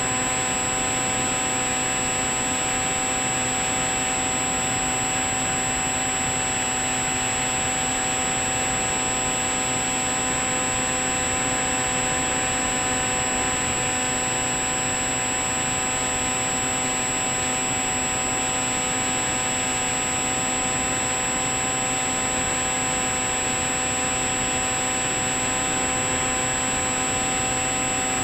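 Bixler 3 RC plane's electric motor and pusher propeller running at a constant pitch, picked up by the camera on board: a steady whine over rushing air.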